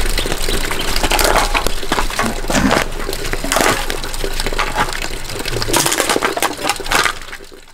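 Rubbish being picked up from a stone campfire ring: irregular clinks, crunches and rattles of cans and glass. The noise dies down near the end.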